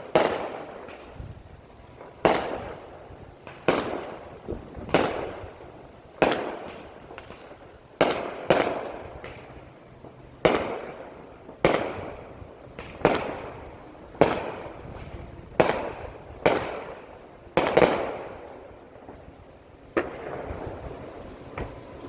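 Aerial firework shells bursting one after another, about fifteen booms in twenty seconds, each trailing off in a rolling echo. The bursts stop about twenty seconds in.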